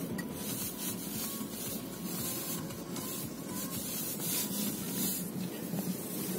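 A car ploughing through deep fresh snow, heard from inside the cabin: a steady scraping and hissing of snow against the tyres and underbody, surging unevenly, over a low rumble.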